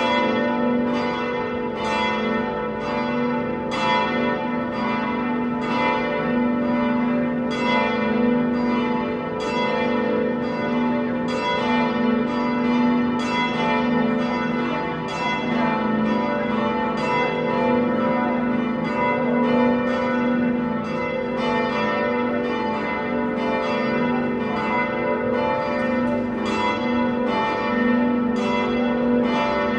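Church bells ringing, struck one after another about twice a second, their tones ringing on and overlapping.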